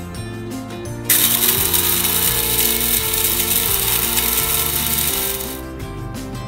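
KRUPS electric blade coffee grinder whirring as it grinds dehydrated green bell pepper to a powder. It starts abruptly about a second in, runs steadily for about four and a half seconds, then winds down about a second before the end.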